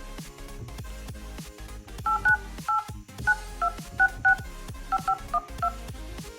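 Phone keypad dialing tones (DTMF): about a dozen short two-tone beeps in quick, uneven succession as a number is keyed in for an outgoing call, starting about two seconds in, over music.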